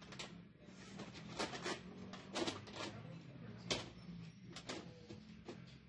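Thin plastic diffuser sheet of an LCD TV's backlight being handled and flexed, giving a series of sharp clicks and crackles, over a low steady hum.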